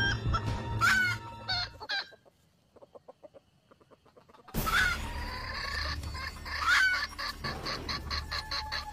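Red junglefowl (labuyo) roosters clucking and giving short calls. The calls break off into near silence about two seconds in and resume about two and a half seconds later with rapid clucking.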